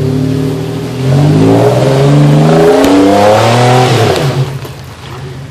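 Off-road 4x4's engine revving hard under load on a steep muddy climb, its pitch climbing in surges, then dropping off about four and a half seconds in as the throttle eases.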